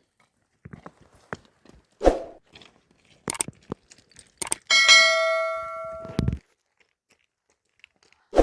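Knocks and clatter, then a metal object clangs and rings for over a second before it is cut off with a thump; another thump follows near the end.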